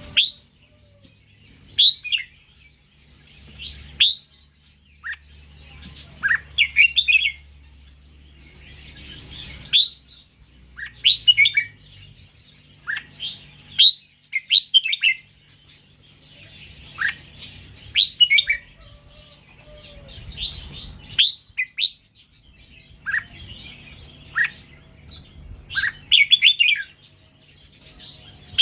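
Red-whiskered bulbul of the Indonesian strain singing: short, sharp rising whistled notes and quick warbled phrases, repeated every second or two.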